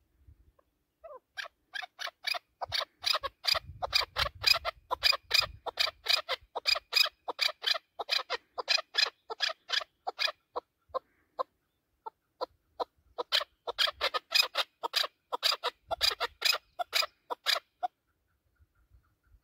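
Chukar partridge calling: a long, fast series of repeated clucking notes lasting about ten seconds, a short pause, then a second series of about five seconds.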